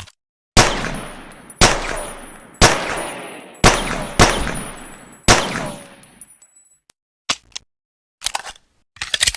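Six pocket-pistol shots, about a second apart, each with a long echoing tail that fades over a second or more, followed by a few short clicks near the end.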